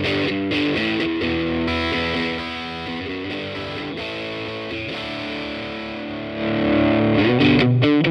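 Electric guitar played through a Laney CUB-Super 12, a 15-watt all-tube combo, with its gain being turned up towards full, giving a loud, broken-up overdriven tone. Chords and single-note phrases, a little quieter in the middle and louder again near the end.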